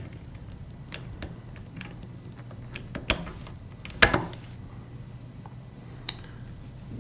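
Small metal bicycle-hub parts clicking and clinking as the driver is fitted over the greased ball-cage bearing retainer onto the axle, with two louder clinks about three and four seconds in. A low steady hum runs underneath.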